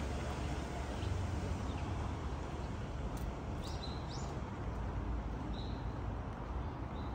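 Steady low hum of city street traffic, with a few short, rising bird chirps about halfway through and again near the end.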